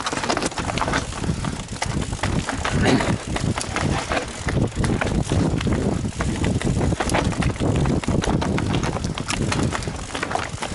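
Mountain bike rattling and clattering over a rough trail, a dense run of sharp knocks from the frame, chain and tyres hitting rocks and roots, over a steady low wind rumble on the camera microphone.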